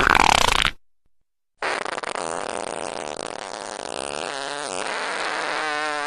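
A short, loud noisy burst, then after a second of silence one long fart sound effect lasting about four and a half seconds, its pitch wobbling and settling into a steady buzz just before it cuts off.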